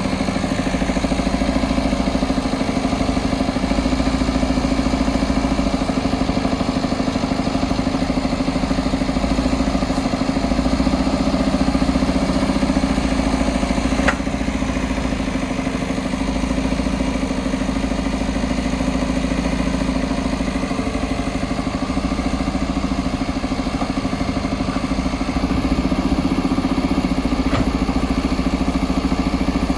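JCB backhoe loader's diesel engine running steadily at an even pitch, with a single sharp click about fourteen seconds in.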